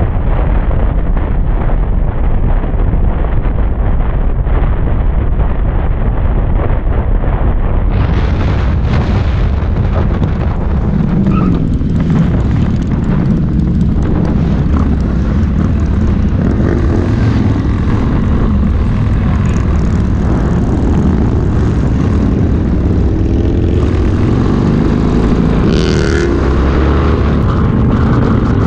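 Wind buffeting a handlebar-mounted camera on a moving motorcycle, over the steady low drone of motorcycle engines riding in a group. In the later half the engine note rises and falls a little as the bikes change speed.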